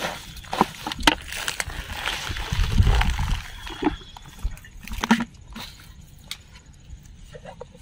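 Close handling noises: scattered clicks and knocks with rustling, as a plastic bucket and a plastic food container are set down and handled among dry, trampled water hyacinth stalks. A louder low rumble comes about three seconds in.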